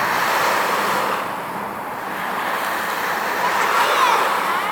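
Steady rushing outdoor noise of wind and distant traffic. Near the end comes a brief high wavering call that rises and falls.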